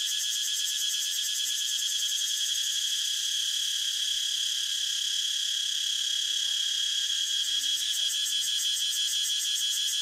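A cicada singing: one continuous, steady, high-pitched buzz that never breaks.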